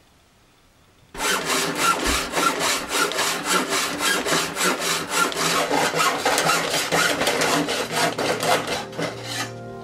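Hacksaw cutting through a thin copper sheet, a fast even run of back-and-forth scraping strokes, about four to five a second, starting about a second in and stopping near the end.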